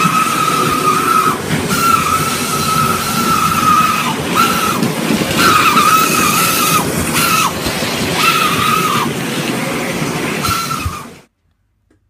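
Model railway locomotives running on the track: a steady rattling rumble from the wheels and mechanism, with a high squeal that keeps breaking off and coming back. The sound cuts off suddenly about eleven seconds in.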